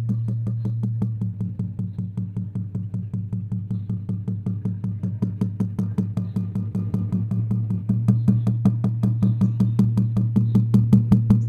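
Water drum beaten in a fast, steady roll of about five strokes a second, each stroke sounding a low, ringing pitched tone that carries through the roll. The beats grow louder about eight seconds in.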